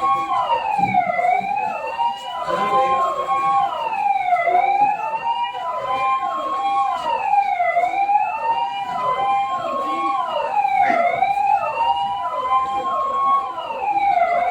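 Emergency vehicle sirens sounding together. One is a slow wail that rises over about three seconds and drops back, again and again. Under it runs a faster falling yelp, about three or four sweeps a second.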